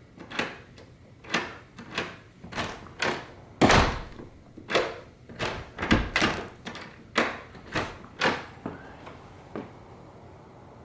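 A string of sharp clicks and knocks, about one or two a second, as the smart deadbolt's parts are handled and fitted; two louder knocks come about four and six seconds in.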